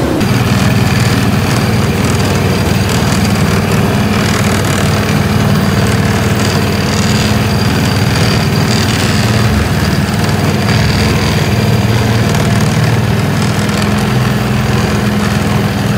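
Small engine of an antique-car ride vehicle running steadily, heard from on board as the car drives along its guide-rail track.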